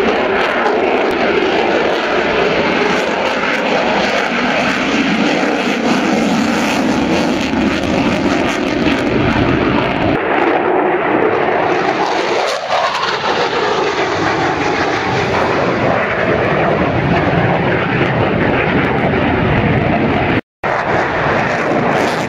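Loud jet noise from an F-22 Raptor's twin Pratt & Whitney F119 turbofans on a display pass. The tone sweeps as the jet passes closest about halfway through, and the sound cuts out for a moment near the end.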